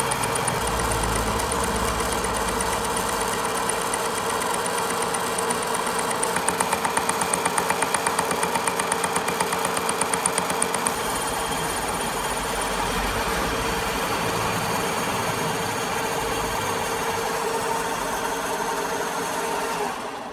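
Vertical milling machine running, its cutter milling gear teeth into a steel shaft held in a dividing head: a steady machine hum with a fast pulsing of about four to five beats a second through the middle, dropping away at the very end.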